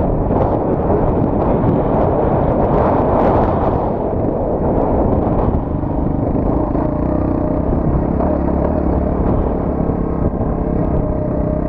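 Qlink XF200 motorcycle's single-cylinder engine running under way, heavily buffeted by wind noise on the microphone. The wind eases about five seconds in and the engine's steady note comes through more clearly.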